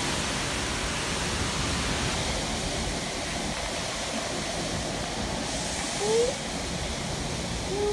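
Strong storm wind blowing through trees, a steady rushing noise. Two short rising squeals come through it, about six seconds in and again near the end.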